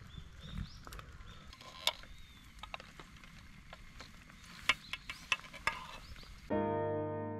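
Scattered light clicks and taps of tableware over a faint steady hiss. Soft music begins about six and a half seconds in.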